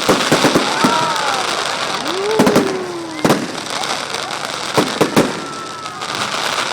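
Fireworks display: a run of sharp bangs and crackling, with a few sliding tones between the bangs.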